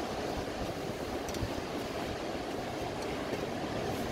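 Surf breaking on a sandy beach with wind on the microphone: a steady rush of noise, heaviest in the low end.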